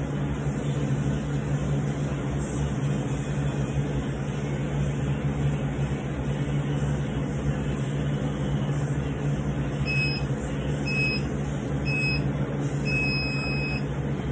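Workout interval timer counting down: three short high beeps a second apart, then one longer beep that marks the start of a work interval. A steady low hum runs underneath.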